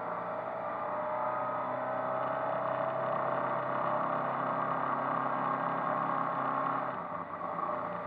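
MerCruiser 140 hp 3.0-litre four-cylinder sterndrive engine running steadily at low cruising speed, heard from inside the boat's cabin. The drone eases briefly about seven seconds in.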